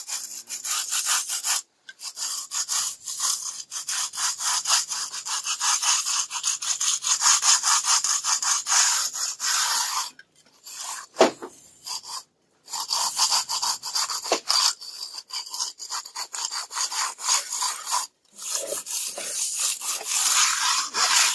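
Plastering float rubbing over cement render on a wall in quick back-and-forth strokes, pressed hard to smooth the surface. The scraping stops briefly a few times.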